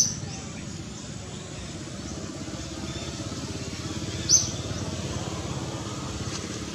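Steady low outdoor rumble, with two short high-pitched chirps: one at the start and one about four and a half seconds in.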